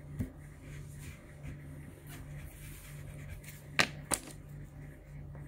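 Two sharp clicks about a third of a second apart near the end, as of a hard object tapped or set down on a desk, over a steady low hum.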